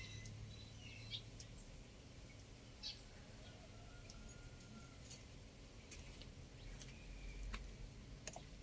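Faint, scattered bird chirps and sharp ticks over a steady low hum.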